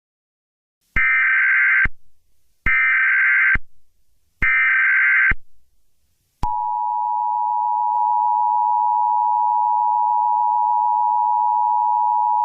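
Emergency Alert System alarm: three short bursts of screechy data tones (the SAME header), each just under a second long, then the steady two-tone EAS attention signal starting about halfway through and holding.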